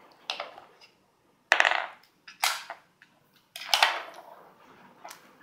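Dog Casino wooden treat puzzle being worked by a miniature schnauzer's nose and paws, its drawers and knob pegs knocking and clattering in four sharp bursts about a second apart.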